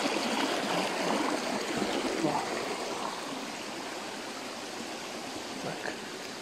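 Small rocky forest stream rushing and splashing over stones. It grows steadily fainter after about two seconds.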